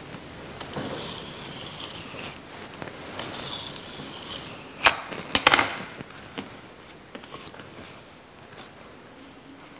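Knife cutting strips of rolled pastry dough on a countertop: light scrapes and clicks of the blade, with a couple of sharp knocks about halfway through.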